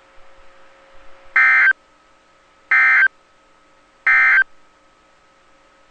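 Emergency Alert System SAME end-of-message code from NOAA Weather Radio: three short, loud bursts of warbling digital data tones, each about a third of a second long and about a second and a half apart, marking the end of the warning. A faint steady hum sits underneath.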